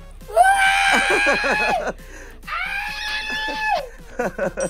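A person's high-pitched scream of excited surprise, given twice, each held steady for over a second.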